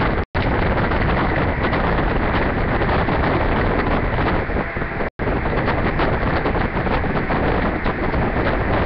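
Loud, steady rushing noise, like static or wind on a microphone, that cuts out to silence for a moment twice: just after the start and about halfway through.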